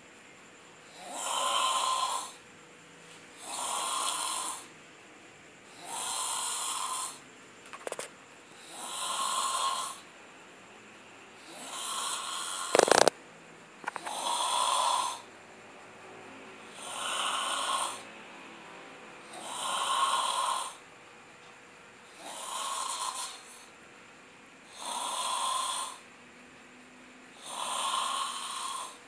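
Snoring in a slow, even rhythm: one snore about every two and a half seconds, about a dozen in all. A sharp click about thirteen seconds in is the loudest sound, with a fainter click near eight seconds.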